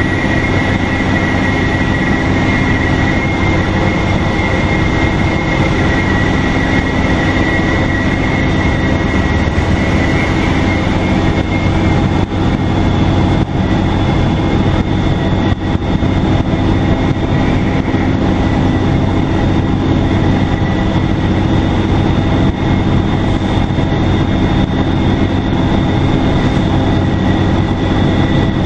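2002 NABI 40LFW transit bus under way, its Detroit Diesel Series 50 engine running with heavy road rumble and a steady high turbo whistle. The whistle is strongest for the first ten seconds or so, then eases off while a thinner, higher tone carries on.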